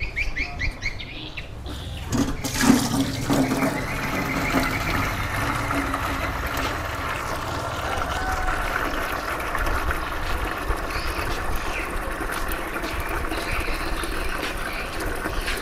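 Water running steadily into a container as N3M root-stimulant fertiliser is mixed with water, starting about two seconds in.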